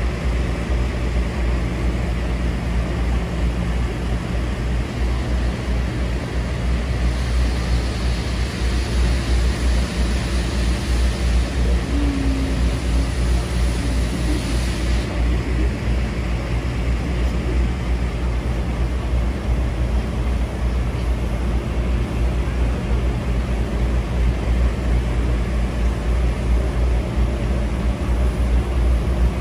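Steady low rumble inside a passenger car of a steam-hauled train pulling slowly away from a station. A hiss of steam comes in about seven seconds in and cuts off sharply about halfway through.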